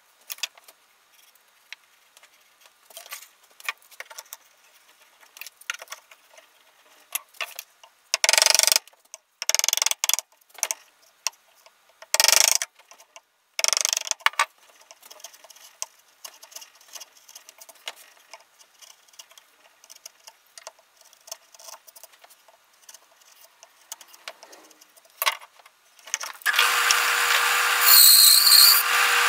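Scattered light clicks and knocks of a board and clamps being handled on a wooden bench, with a few short bursts of tool noise, each under a second. Near the end a benchtop band saw starts and runs with a steady whine as it begins cutting the board.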